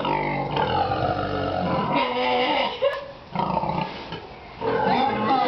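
Two female pigs making loud, drawn-out calls: three long cries, the first two back to back and the third starting near the end after a short lull.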